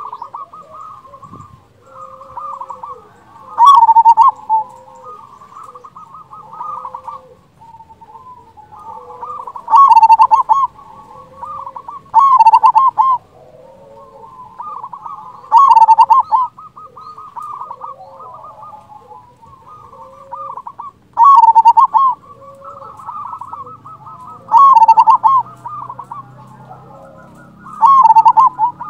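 Zebra dove (perkutut) cooing: a steady run of soft, rolling, trilled coos with a much louder coo phrase every few seconds.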